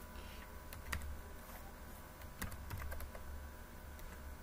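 Computer keyboard keys clicking as a word is typed: a handful of separate keystrokes, irregularly spaced, over a low steady hum.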